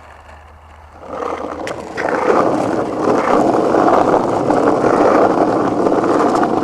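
Skateboard wheels rolling on pavement: the rumble builds about a second in, with a few sharp clicks just before it settles into a loud, steady roll.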